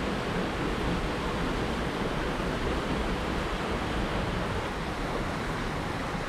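Steady rain falling, an even noise with no breaks.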